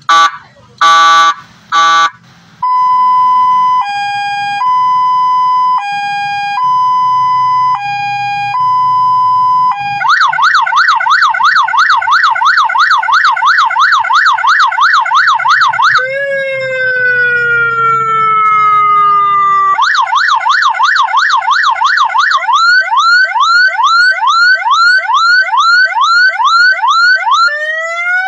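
12-volt six-tone siren horn speaker cycling through its tones: three short loud blasts, then a slow two-note hi-lo, a fast warble, a slowly falling wail, the fast warble again, quick repeated rising whoops, and near the end a long rising wail.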